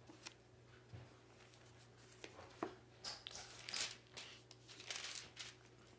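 Faint rustling of paper pages being handled and turned, a few soft clicks followed by a cluster of short rustles in the second half.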